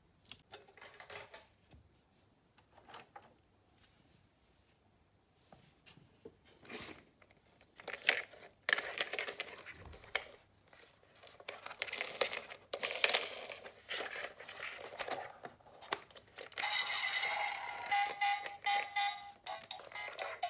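Small plastic and die-cast toy cars being handled, with scattered clicks and rustling that grow louder about a third of the way in. Near the end an electronic toy ambulance siren starts up and keeps going.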